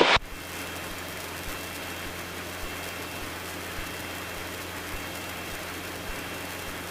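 Cessna 150's four-cylinder Continental O-200 engine and propeller droning steadily in cruise flight, heard from inside the cabin. A short loud hiss cuts off right at the start.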